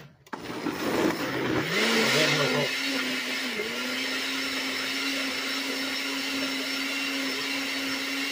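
Countertop blender motor starting up and pureeing a jar of salsa (hot peppers and cilantro). It chops loudly through the chunks for the first couple of seconds, then settles into a steady whir as the salsa turns smooth.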